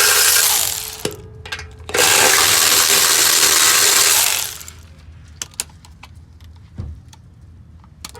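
A power tool running in two long bursts, spinning loose the cracked 14 mm bolts on a car's exhaust; the first burst stops about a second in and the second runs from about two seconds in to about four and a half. After that come a few light clicks and knocks.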